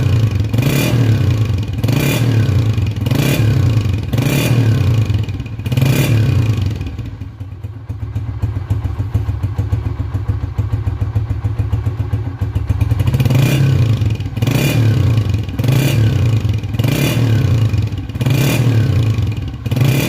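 Honda CG125's single-cylinder four-stroke engine running through a KYH SC aftermarket silencer, revved in short throttle blips about once a second. It drops back to a steady idle for several seconds in the middle, then the blips start again.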